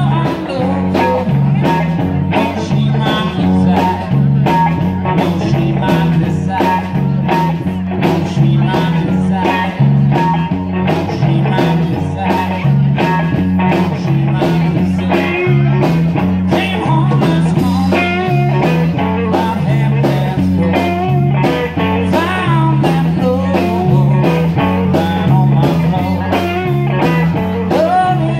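Live band playing a blues-rock number: guitar over a stepping bass line and a steady drum beat.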